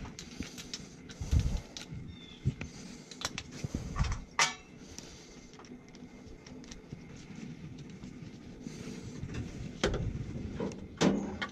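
Scattered knocks, clicks and clinks of metal parts being handled while a replacement boiler inducer motor is fitted and lined up with its bolt holes. The loudest clink comes about four seconds in, with a quieter stretch in the middle and more knocks near the end.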